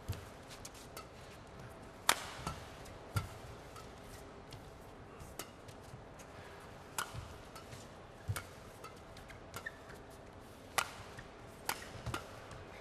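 Badminton rally: sharp cracks of rackets striking the shuttlecock at irregular intervals of about one to two seconds, with dull thuds of players' feet landing on the court, over a low steady arena hum.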